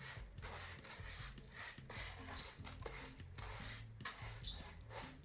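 Cat litter being poured and spread by hand into a litter box: soft repeated rustling and scraping of loose litter. A faint bass line of background music runs underneath.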